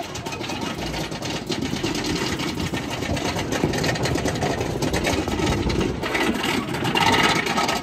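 Ghost Rider wooden roller coaster train rattling on its track, a dense, fast steady clatter.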